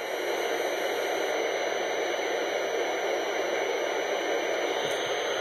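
NOAA Weather Radio receiver giving out steady static hiss: the station's broadcast has dropped off the air, leaving the receiver on dead air before the backup transmitter takes over.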